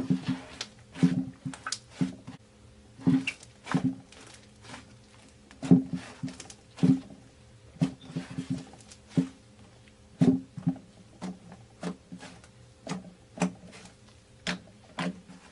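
Pink fluffy slime being kneaded and pressed by hand, giving irregular squelches with sharp pops and clicks, several a second.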